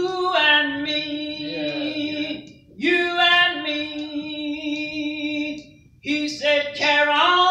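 An elderly woman singing a gospel song unaccompanied, in three long drawn-out phrases of held, sliding notes with short breaks for breath between them.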